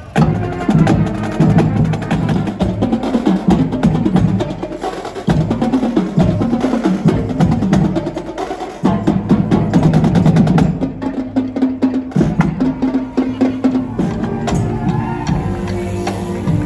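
Music with a busy drum and percussion beat over low held notes, starting abruptly and continuing loud throughout.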